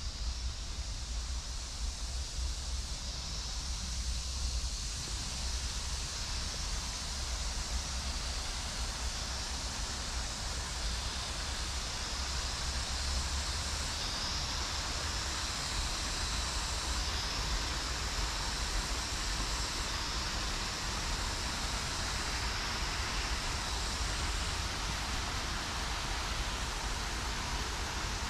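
Steady outdoor rushing noise, with a low rumble underneath and a brighter hiss on top that swells a little in the middle.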